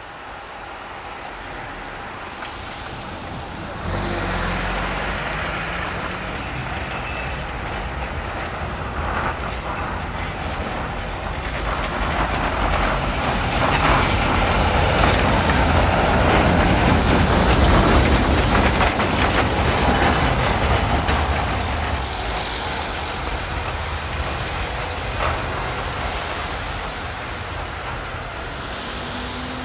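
Siemens ULF low-floor tram passing at close range. Its running noise builds up, is loudest midway with a steady high whine, then fades as it pulls away.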